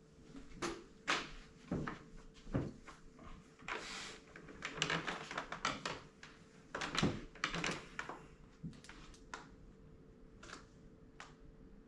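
Scattered knocks, clicks and rustling handling noises in a small room, over a faint steady hum; they thin out near the end.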